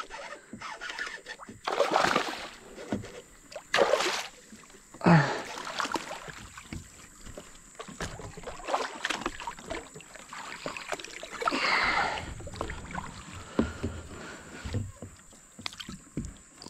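Water splashing from kayak paddle strokes, then a hooked bass thrashing at the surface as it is reeled in beside the kayak, in irregular bursts.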